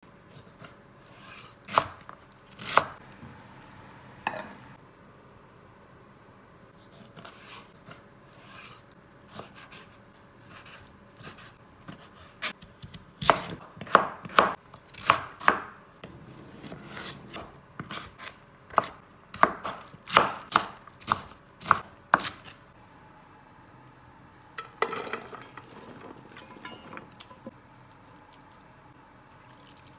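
Kitchen knife cutting on a cutting board, slicing raw chicken breast and then daikon radish. A few spaced knife strikes on the board are followed by about ten seconds of quick, sharp strikes.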